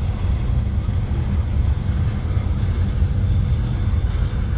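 Freight train of loaded bulkhead flatcars rolling past, a steady low rumble of the wheels on the rails.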